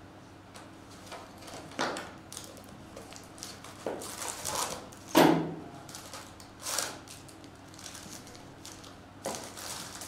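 Hands opening a cardboard hobby box of baseball cards and pulling out the foil-wrapped packs: a string of knocks and crinkly rustles, the loudest knock about five seconds in.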